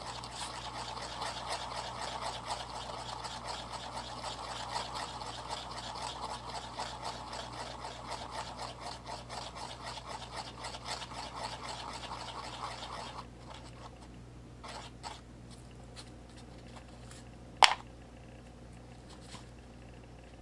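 Wooden toothpick stirring two-part epoxy resin and hardener together on cardboard: rapid, steady scratchy scraping that stops about thirteen seconds in. After it come a few faint ticks and then one sharp click.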